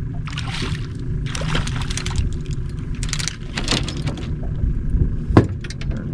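A hooked redfish splashing at the surface in several short bursts as it is reeled to the side of the boat and lifted from the water, with a sharp thump near the end, over a steady low rumble.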